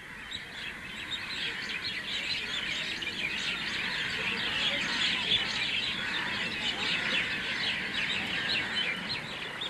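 Many small birds chirping at once in a dense, overlapping chorus that builds over the first second or two and thins a little near the end.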